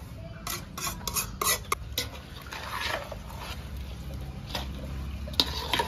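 A metal ladle scraping and knocking inside a metal kadai as the tempering is emptied into a basin of mango pickle, then a spoon stirring through the thick pickle with clinks against the metal basin. A quick run of sharp clinks comes in the first two seconds and more come just before the end.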